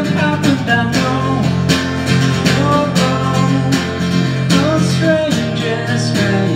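Guitar strummed in a steady rhythm, ringing chords in the wordless closing bars of the song.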